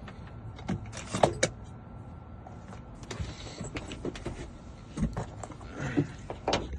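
Scattered metallic clicks and rattles of car keys and door lock parts being handled while a lock cylinder is refitted into the car door.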